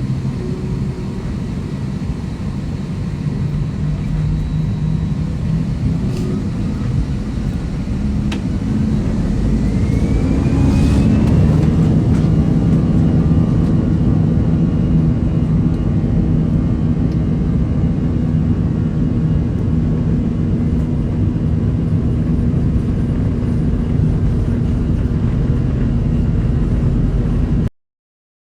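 Jet airliner engines heard inside the cabin: a steady low rumble, then about eight seconds in a whine rises in pitch and the noise grows louder as the engines spool up, holding steady until the sound cuts off suddenly near the end.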